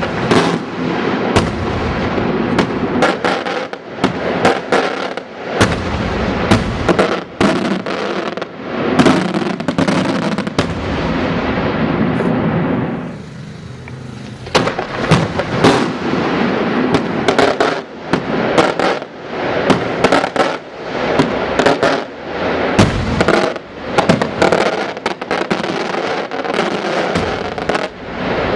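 Fireworks going off in a dense, continuous barrage of bangs and crackling. About halfway through the bangs thin out for a second or two, leaving a hiss, then the barrage picks up again.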